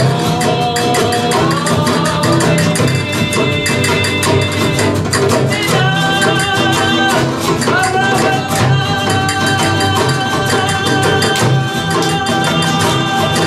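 Live flamenco-style song: two nylon-string acoustic guitars strumming fast, steady chords with a hand drum keeping the beat, under a voice holding long, wavering sung notes.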